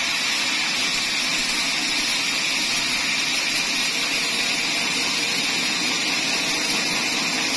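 Band sawmill blade ripping lengthwise through a large teak log: a steady, even hiss from the saw in the wood, with a constant high whine over it.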